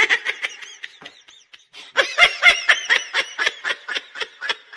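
Rapid snickering laughter: a string of short, high-pitched laugh pulses, about five a second, that trails off after a second or so and starts up again louder about two seconds in.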